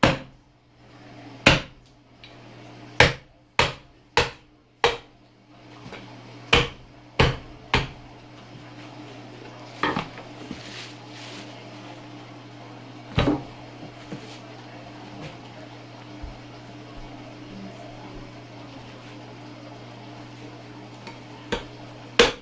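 Sharp knocks of a knife chopping at a raw pig's head on a plastic cutting board: a quick run of about ten strikes in the first eight seconds, then a few scattered ones, the last just before the end. A steady low hum runs underneath.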